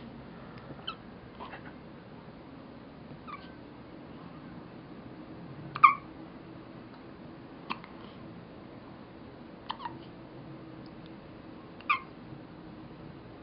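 A newborn baby hiccuping: short, high little hiccups about every two seconds, seven or so in all, some louder than others.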